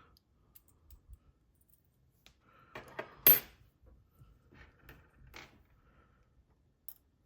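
Small steel parts of a PacLock 90A Pro padlock clicking and clinking on a hard surface as it is taken apart. There is one sharp metallic clink about three seconds in, then a few lighter ticks.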